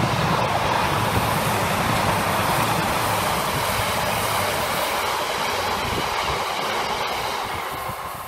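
Freight train of aggregate hopper wagons rolling past close by, a loud steady noise of wheels on the rails that fades away near the end as the last wagon goes by.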